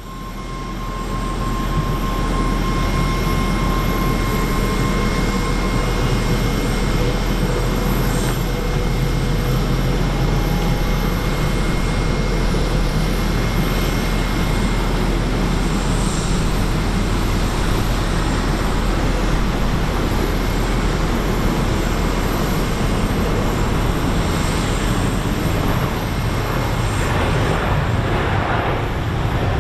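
Boeing 777-300ER jetliner's GE90 turbofan engines: a steady, loud jet roar with faint whining tones that drop out partway through.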